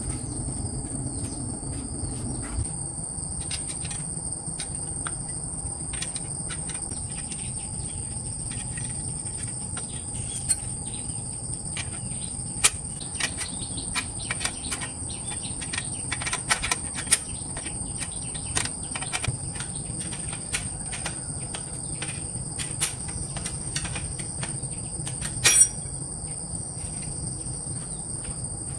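Steady high-pitched insect chorus, with scattered short clicks and taps from hand tools working on a bicycle's parts; the loudest is a quick double click near the end.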